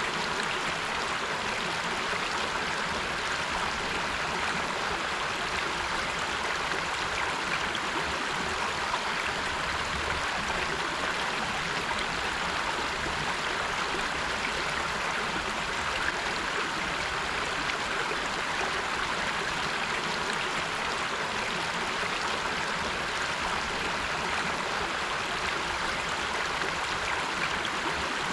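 River water flowing steadily over rocks: an even rushing and babbling.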